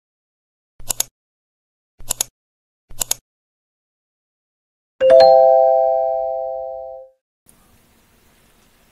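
Edited-in intro sound effects: three quick double clicks about a second apart, then a single bright bell-like chime that rings and fades away over about two seconds.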